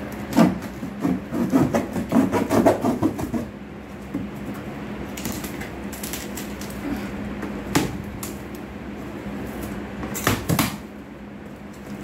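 Cardboard box being cut open with a box cutter: a quick run of scraping, slicing strokes through the tape and cardboard in the first few seconds. A few single sharp cracks and rustles follow as the flaps are pried open.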